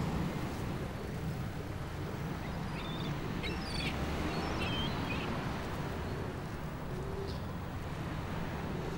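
Outdoor ambience: a steady low rumble with a few short, high bird chirps between about three and five seconds in.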